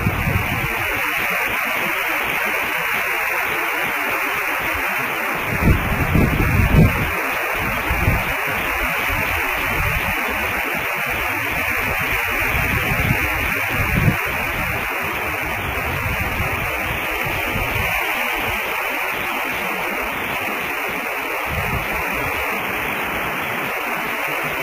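Steady hiss of static on a nest camera's audio feed, with a few brief low rumbles about six seconds in and again near the end.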